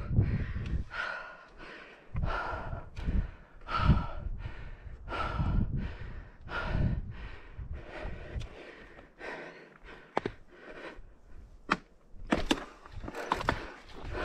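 A mountain biker breathing hard from exertion, one heavy breath about every second. In the last few seconds sharp knocks and clicks come in as the bike clatters over rock and trail.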